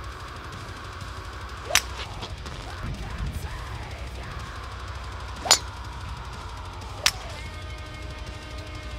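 A driver striking a golf ball off a tee: sharp clicks about two seconds in, loudest about halfway through, and once more shortly after, over background heavy metal music with drums.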